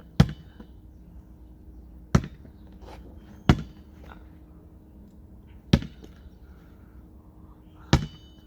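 Basketball bouncing: five sharp bounces at uneven gaps of one to two seconds.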